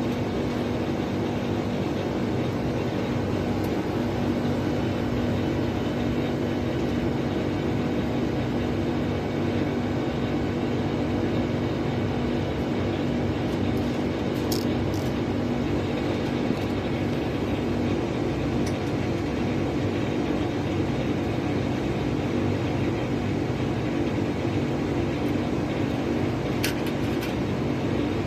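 Air conditioner unit running: a steady mechanical hum with a low drone from the compressor and fan motor, and a few faint ticks partway through and near the end.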